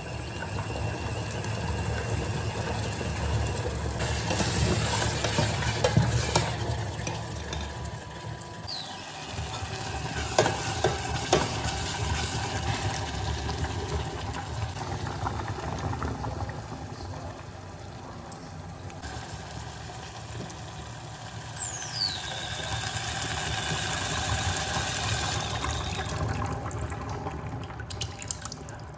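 Food sizzling in a frying pan while being stirred, with a few knocks of the utensil against the pan.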